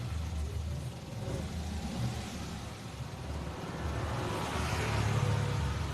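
Car engine running at low revs, getting louder about four to five seconds in with a rushing sound on top.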